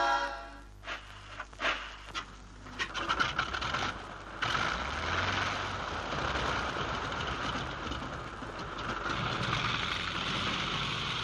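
A few sharp clicks and knocks, then from about four seconds in a steady rushing, rumbling noise that runs on.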